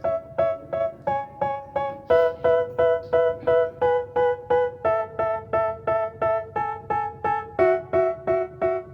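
Background music: a piano-like keyboard playing short repeated chords, about three a second, the chord changing every few seconds.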